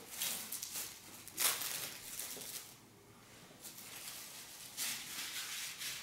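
Plastic wrap crinkling and rustling as it is peeled off the back of a new upright hard-floor cleaner, in several bursts with a short lull about three seconds in.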